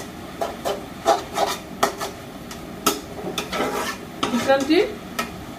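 A spatula scraping and knocking against a karahi as amaranth greens are stirred and fried, in irregular scrapes and taps.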